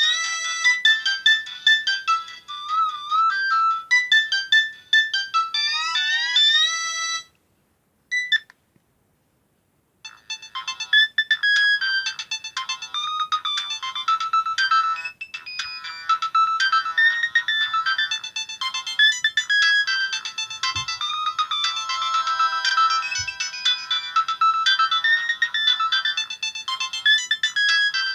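Nokia 5030c-2 mobile phone playing its built-in ringtones through its loudspeaker. A high, quick electronic melody stops about seven seconds in. After about three seconds of silence, a busier ringtone starts and keeps playing.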